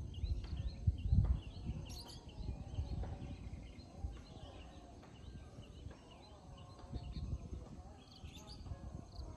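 Small birds chirping in many short, high calls over a low, irregular rumble that is loudest about a second in.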